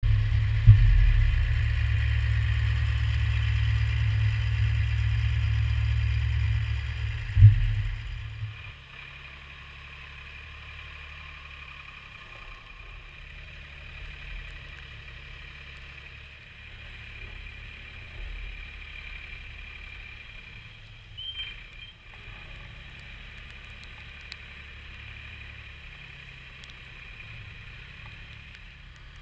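Linde forklift engine running. It is loud and close with a heavy low rumble for about the first eight seconds, with two sharp knocks, then fainter and steady while the forklift works.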